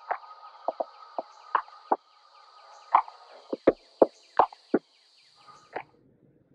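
Intro sound over the title card: a string of sharp, irregular knocks of varying pitch, each ringing briefly, over a steady high buzzing trill. It all stops just before the end, leaving only the faint low hum of a room fan.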